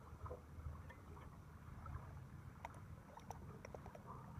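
Faint low rumble of wind and water around a small boat, with a few light clicks in the second half.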